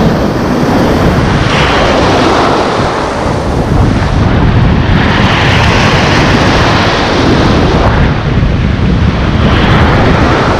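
Strong wind buffeting the microphone with a steady low rumble, over surf whose hiss swells up about every three to four seconds as waves break.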